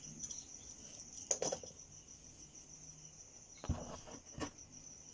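A cricket chirring steadily in the background, with a few short knocks and rustles of cloth being handled and laid out on a hard work surface.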